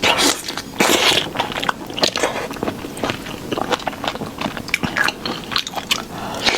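Close-miked eating of sauced shrimp: a run of irregular bites and chewing with crunchy, crackly clicks.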